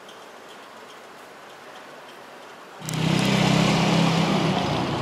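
Street traffic noise. A quiet, even hiss with a few faint ticks, then about three seconds in it turns suddenly much louder, with the steady low hum of a running vehicle engine.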